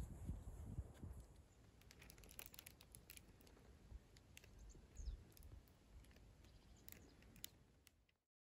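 Faint outdoor winter ambience: an uneven low rumble, like wind on the microphone, with scattered light clicks and a small high chirp or two. The sound cuts off abruptly to dead silence near the end.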